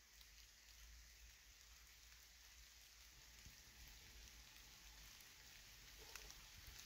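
Near silence: a faint, steady hiss of outdoor background, with a low rumble and a few light ticks about six seconds in.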